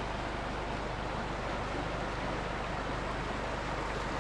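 Rushing water of a shallow, rocky river rapid: a steady, even wash of noise.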